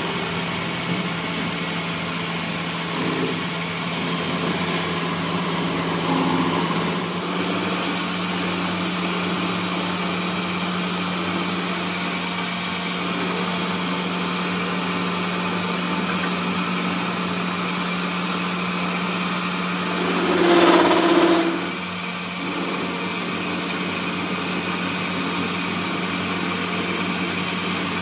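Metal lathe running steadily with a low motor hum while a tool bit turns the end of a threaded metal shaft. The cutting noise swells to a louder stretch of about two seconds roughly three-quarters of the way through.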